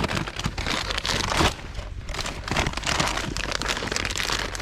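Rustling and crinkling handling noise, with many small crackles and clicks.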